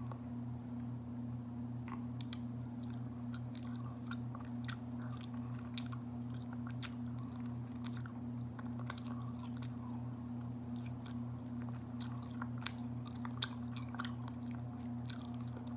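Close-up wet, sticky chewing of raw honeycomb, with many small smacking clicks as the honey is sucked from the wax. A steady low hum runs underneath.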